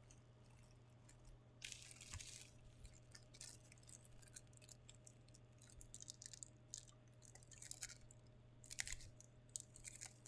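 Faint, irregular crinkling and rustling of packaging being handled, in short crackly bursts, over a steady low hum.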